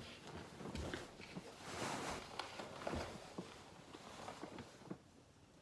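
Fabric rustling as a comforter is pulled and smoothed over a bed, with a louder swish about two seconds in and a few soft knocks and shuffles.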